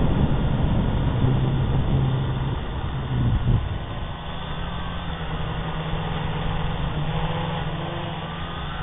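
Syma toy quadcopter's motors and propellers whirring, heard through its onboard camera's microphone with heavy wind buffeting. About three and a half seconds in, the buffeting drops away and a steady low hum remains.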